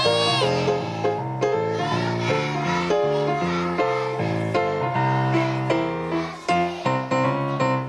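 Instrumental music led by a keyboard, playing a melody of short stepped notes over a steady bass line.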